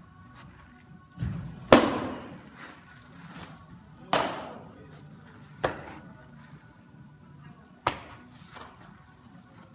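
Pitched baseballs smacking into a catcher's mitt, a sharp pop that echoes through a large indoor room. The loudest smack comes just under two seconds in and another about two and a half seconds later, followed by two lighter, shorter cracks.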